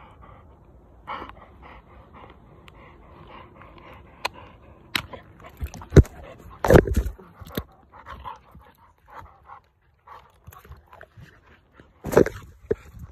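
Six-month-old cane corso x presa canario puppy panting and snuffling right at the microphone, with rustling and several loud knocks and scrapes close by, the loudest about six to seven seconds in and again near the end.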